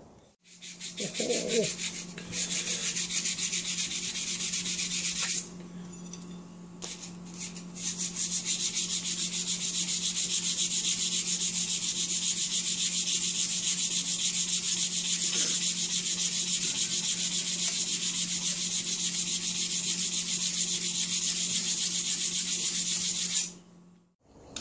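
Steel knife blade being hand-sanded on abrasive paper: fast, even back-and-forth rubbing strokes, easing off briefly about five seconds in before carrying on, over a steady low hum.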